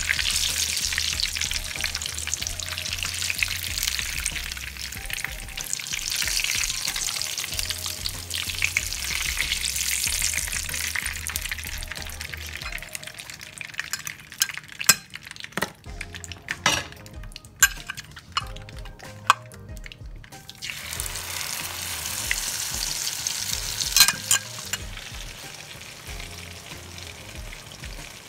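Tortang talong, eggplant coated in beaten egg, sizzling as it fries in a pan. About halfway the sizzle dies down for several seconds while a run of sharp clicks and knocks is heard, then the sizzle picks up again, with one more click near the end.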